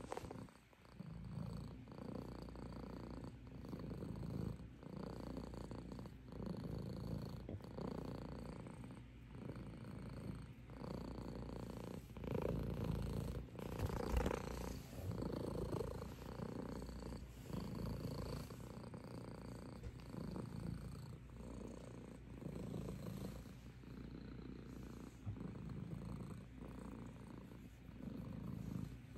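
Domestic cat purring close up while being stroked, a steady low rumble that swells and breaks in pulses about a second long. About halfway through it grows louder for a couple of seconds as the cat's face presses near the microphone.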